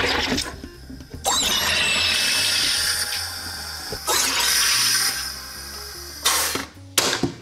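SodaStream soda maker carbonating a bottle of water: loud hissing bursts of CO2 gas bubbling through the water each time the button is pressed, five bursts in all, the last two short.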